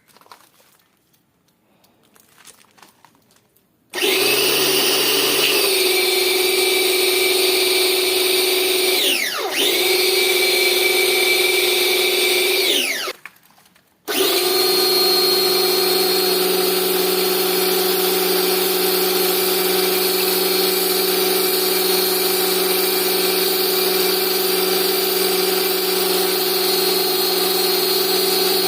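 Bosch AQT 110 pressure washer's newly fitted brushed motor and pump on a test run: it starts with a loud steady whine about four seconds in, dips and picks up again briefly, winds down and stops, then starts again a second later and runs on steadily.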